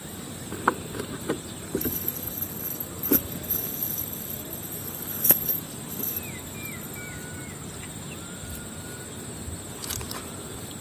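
Outdoor ambience: a steady high-pitched insect drone, scattered knocks and rustles in the first half, and a few short chirping calls after the middle.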